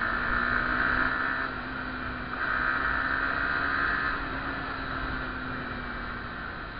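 Motorcycle engine running at low speed in traffic, with a steady low hum. A louder, higher-pitched noise comes in twice during the first four seconds, each time for about two seconds.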